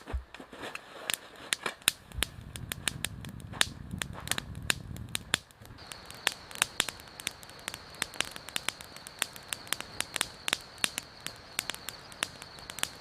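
Campfire crackling with irregular sharp pops and snaps, joined about six seconds in by a faint steady high whine.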